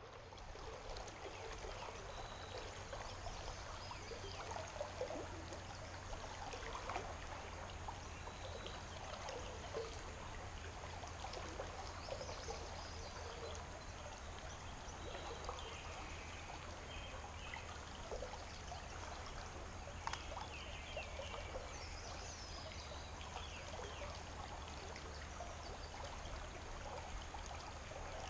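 River current flowing steadily over a shallow riffle, a faint babble of water with small scattered gurgles.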